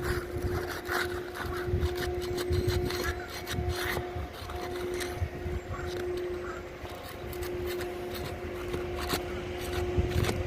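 Scattered scraping, cracking and clicking as brittle old asphalt shingles, stuck together by mat transfer, are pried loose. A steady hum runs underneath and drops out briefly a few times, over a low rumble.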